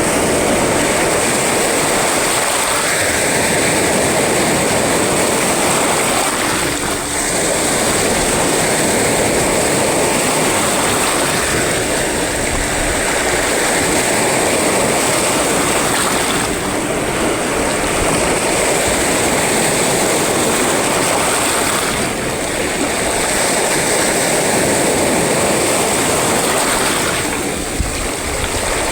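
Sea waves breaking on a shore in a rough sea: a loud, continuous rushing noise that eases a little every several seconds as the waves come in and draw back.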